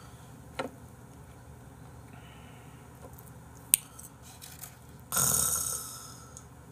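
Close-up eating sounds of a person eating raw beef omasum with chopsticks. There is a faint click about half a second in and a sharp click near the middle. About five seconds in comes a loud, breathy mouth noise lasting about a second and fading away.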